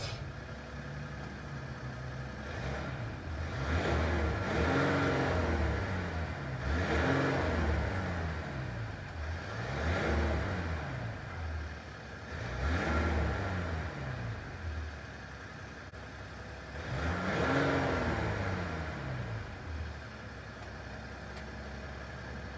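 A 2017 Ram 1500 EcoDiesel's 3.0-litre turbodiesel V6, heard at the exhaust tip. It idles and is revved five times, each rev rising and falling back, then settles to a steady idle near the end.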